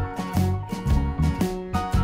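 Background music: an upbeat instrumental track with a steady beat.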